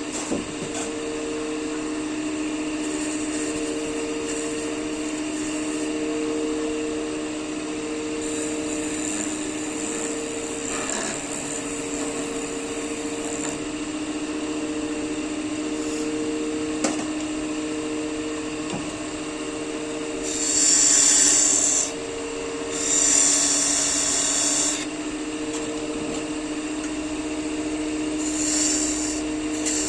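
Wood lathe running with a steady hum, one tone of which swells and fades every couple of seconds, while a turning tool scrapes the spinning wood. Two louder bursts of cutting come about two-thirds of the way through.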